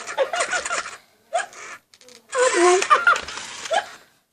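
TMX Elmo talking toy laughing in its high-pitched Elmo voice, the laughter broken by short, sharp hiccups.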